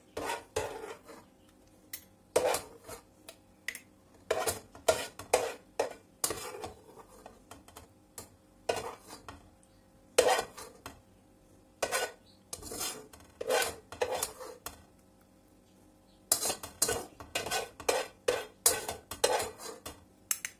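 Metal spoon scraping cooked tomatoes out of a pot and clinking against the rim of a glass jar as the jar is filled. The scrapes and taps come in irregular clusters, with two short pauses.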